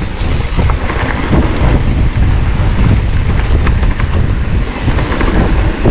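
Heavy wind noise buffeting the microphone of a camera on a mountain bike riding fast downhill, with scattered knocks and rattles from the bike over rough trail.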